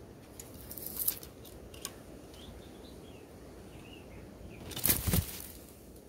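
Wing flaps and rustling as a greater coucal lands at the nest, loudest about five seconds in, with a shorter burst about a second in. Faint short chirps from small birds in between.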